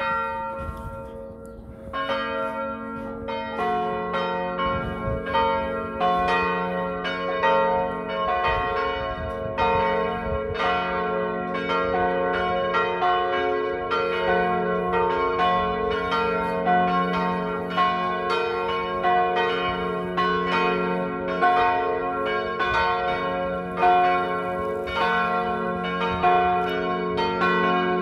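Full peal of three swinging church bells tuned G♭, B♭ and D♭ (ges', bes', des''), starting up: one bell begins striking, a second joins about two seconds in and the third about three and a half seconds in, after which all three ring together in an overlapping, irregular pattern of strikes.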